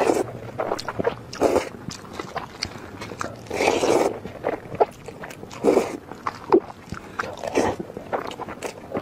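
Close-miked eating sounds of noodles being slurped and chewed. Several slurps come among wet chewing and lip smacks, the longest about three and a half seconds in.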